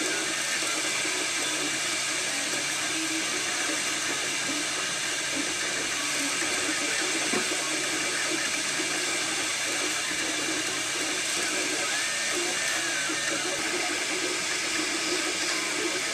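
Desktop filament 3D printer running a print: a steady whir and hiss from its cooling fans, with the stepper motors giving faint whines that shift in pitch as the print head moves.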